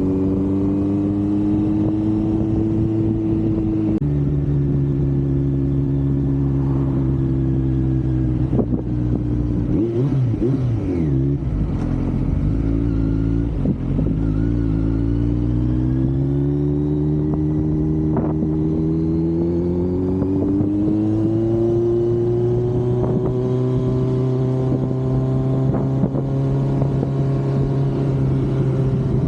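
Kawasaki Z900 inline-four engine and exhaust under way. Its pitch climbs, drops abruptly about four seconds in as at an upshift, wavers unevenly while slowing around the middle, then rises steadily under acceleration and holds steady near the end, with wind noise on the microphone underneath.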